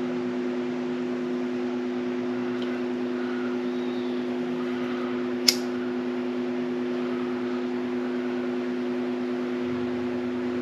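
Electric heat gun blowing with a steady hum, shrinking heat-shrink tubing over a crimped butt-connector splice in a wiring harness. One sharp click about halfway through.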